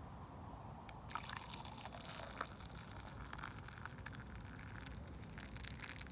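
Cowboy coffee poured from a metal cooking pot into a plastic camping cup, splashing and trickling as the cup fills, starting about a second in.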